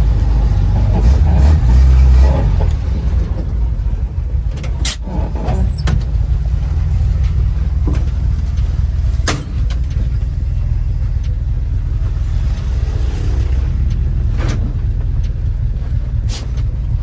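Chevrolet Veraneio's engine running, heard from inside the cabin as a steady low rumble, strongest in the first couple of seconds. A few sharp knocks and clunks are heard over it.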